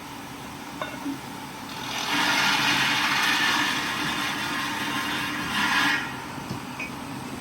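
Machinery running with a steady hum; about two seconds in, a louder rushing, hissing noise starts and lasts about four seconds.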